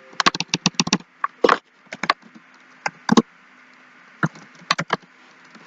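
Computer keyboard typing: a quick run of keystrokes in the first second, then scattered single key presses.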